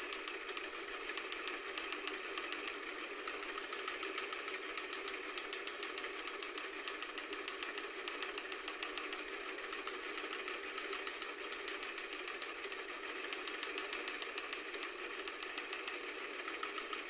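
Film projector clatter: a steady mechanical rattle of fast, even clicking, thin and tinny with no bass.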